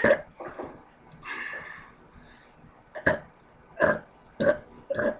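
A child forcing out a string of short burps, about six quick ones with a longer, drawn-out one about a second in.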